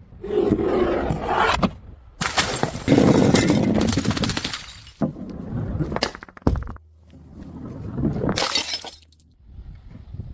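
Glass bottles breaking and shattering in several loud bursts with sharp clinks, the biggest crash about two seconds in.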